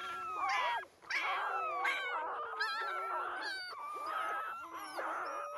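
Litter of newborn puppies crying: several high, thin squeals and whines overlapping almost without pause, broken by a short gap about a second in.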